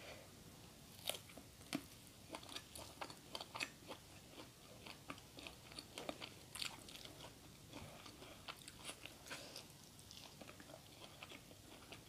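A person chewing and crunching food close to the microphone: irregular quiet crunches and wet mouth clicks.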